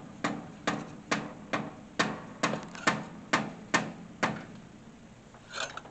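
Steady metal knocks, about two a second, on a long steel bar set against the oxygen sensor at the exhaust manifold of a 2004 Honda Civic, each knock ringing briefly. They stop a little past four seconds in, and a short scrape follows near the end.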